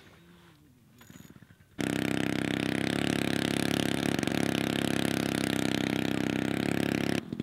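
A small engine running loudly and steadily at one constant pitch. It starts abruptly about two seconds in and cuts off abruptly just before the end.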